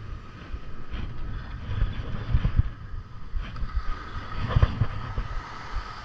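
Wind gusting over the microphone in low, uneven rumbles, over the wash of surf breaking on a sandy beach.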